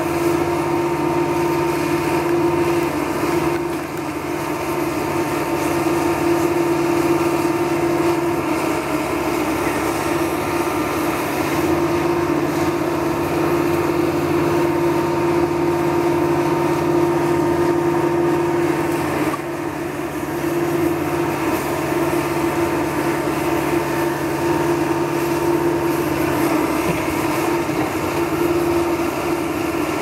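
Caterpillar 420E backhoe loader's diesel engine running under load as the backhoe arm digs and swings, with a steady pitched hum over it. It eases off briefly about four seconds in and again about two-thirds of the way through.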